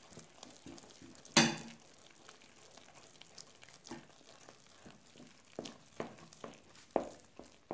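A spoon stirring flour into hot water and melted butter in a bowl to make churro dough: soft scraping with irregular knocks of the spoon against the bowl, the loudest about a second and a half in.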